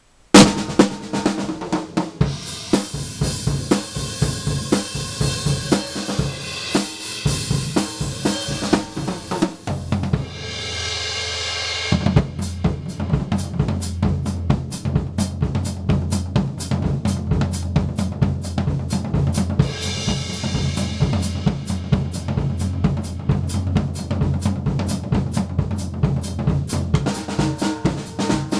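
Drum solo on a Sound Percussion drum kit with stock heads and Wuhan cymbals: dense snare, tom and bass drum strokes with cymbal crashes, starting suddenly. About ten seconds in comes a cymbal swell over a low drum roll, then a long run of even, rapid strokes, with another cymbal wash a little past the middle.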